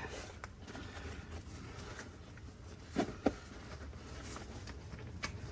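A canvas roll-up tool bag full of hand tools being rolled up and handled: faint rustling and scattered light clicks, with two short clunks close together about three seconds in.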